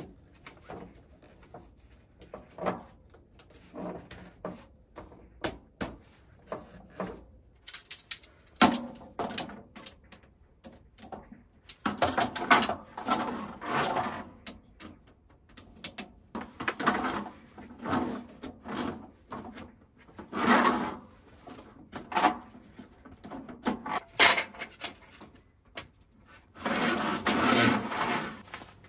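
Camping gear being handled: irregular clicks, knocks and rustling, with a few longer bouts of rustling in the second half.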